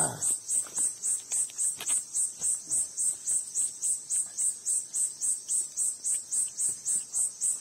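Insect chirping steadily in a high-pitched, even pulse, about three to four chirps a second.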